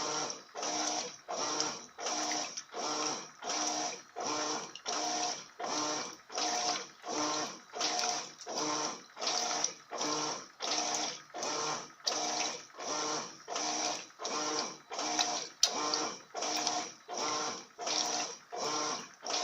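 Electrolux LF80 top-loading washing machine agitating a load of sheets in water. Each swishing stroke carries the motor's hum, and the strokes come about three every two seconds.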